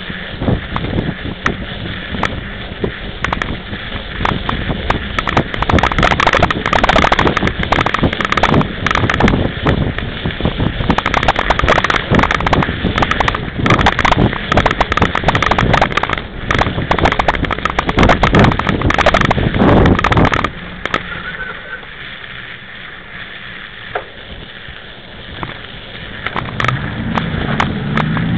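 Mountain bike rolling over rough, packed snow, with the tyres crunching, the bike and camera clattering over bumps, and wind buffeting the microphone. It quietens about two-thirds of the way through, then builds again near the end.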